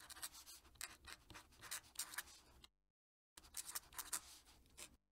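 Fountain pen nib scratching across paper in quick strokes as a cursive signature is written, breaking off for under a second about two and a half seconds in, then resuming and stopping near the end.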